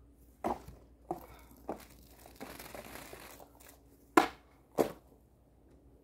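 An arming sword's steel blade cutting through a plastic bottle target on a post: two sharp, loud cracks about half a second apart, about four seconds in. Before them come three softer knocks and a short rustle.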